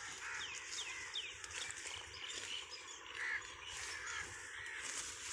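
Birds calling over and over, several short rising-and-falling calls a second overlapping one another.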